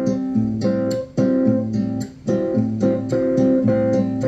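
Acoustic guitar strumming chords in a steady rhythm, played back in mono through Klipsch Heresy speakers driven by an Eico ST-40 7591 tube amplifier, as part of a stereo-check recording.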